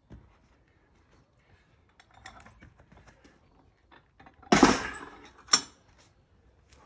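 Plate-loaded grip handle with stacked weight plates knocking and clinking as it is gripped, then a loud metal clatter about halfway through as the loaded handle is set down. A second sharp metal clank follows about a second later, both with a brief metallic ring.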